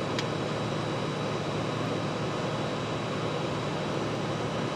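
Steady background noise, a broad hiss over a low hum with a thin high tone, and one faint click shortly after the start.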